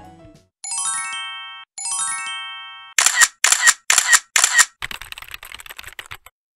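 Background music ending, then two short sparkling chime flourishes of quickly stepping tones. These are followed by four sharp camera-shutter clicks and a quicker run of fainter clicks: edited-in sound effects.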